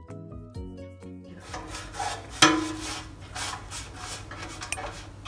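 Silicone pastry brush stroking oil across the bottom and sides of an aluminium cake tray, a run of short rubbing strokes with one sharp knock of the metal tray about halfway through. Soft background music is heard at the start.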